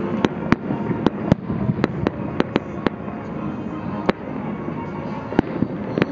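Fireworks show: aerial shells going off, with about a dozen sharp, irregular cracks and bangs over a continuous rumble of explosions.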